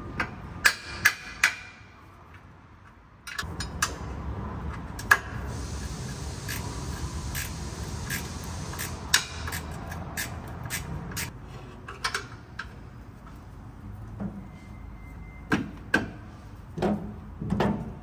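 A mallet knocks sharply three times about a second in, striking at the side bolts of a transmission mount to break them loose. From about three seconds in a steady mechanical noise runs for several seconds, with scattered tool clicks and knocks on the bolts throughout.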